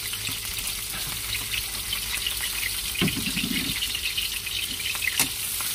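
Hot oil sizzling and crackling in a wok as sliced shallots, garlic and lemongrass fry, a steady hiss full of small pops. A short low knock comes about three seconds in and a sharp click just after five seconds.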